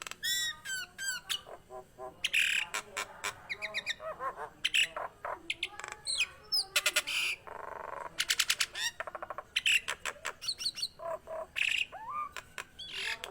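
Nias hill myna in full song, calling without a break: a rapid, varied run of clear whistles that glide up and down, quick ticking notes and harsh squawks.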